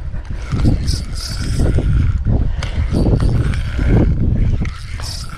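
Spinning reel being cranked with irregular clicking as a hooked queenfish is reeled in close, under a heavy low rumble.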